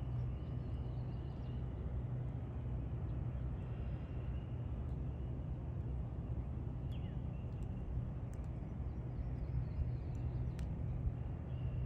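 Steady low outdoor rumble with a few faint high bird chirps and soft clicks.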